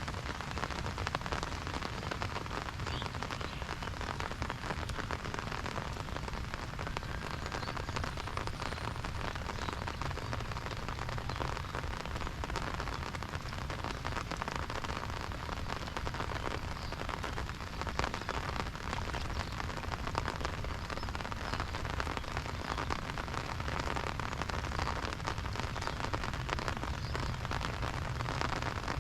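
Steady monsoon rain falling. It beats on an open umbrella as a dense run of small drop hits, with no let-up.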